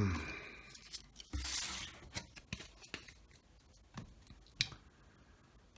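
A baseball card pack's wrapper being torn open: one short rip about a second and a half in, followed by a few light clicks as the cards are handled.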